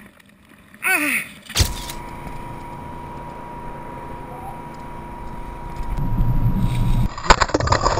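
A man's short cry, falling in pitch. Then a car engine runs steadily with a thin steady whine, the rumble growing louder about six seconds in.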